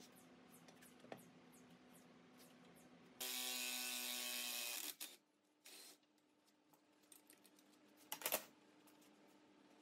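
A cordless power tool runs steadily for about a second and a half, driving the screw of a three-jaw gear puller to draw the bearing off an old three-phase motor's rotor shaft, then gives a short second burst. A few sharp knocks follow near the end.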